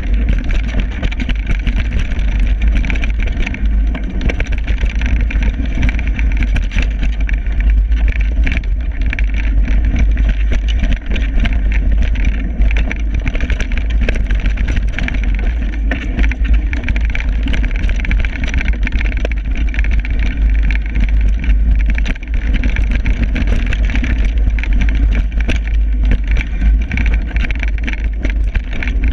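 Downhill mountain bike descending a rough dirt trail, with constant wind rumble on the camera's microphone and a steady stream of rattles and knocks as the bike jolts over bumps and roots.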